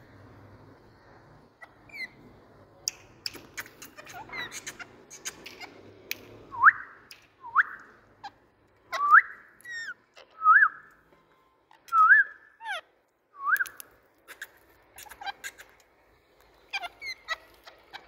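Indian ringneck parakeet giving a series of short rising whistles, six strong ones about a second and a half apart in the middle, with fainter ones before and after. Sharp clicks and taps are scattered among them.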